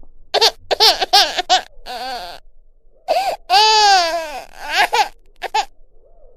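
Laughter: a quick run of short, high-pitched laugh syllables, then one long wavering laugh and two short ones near the end.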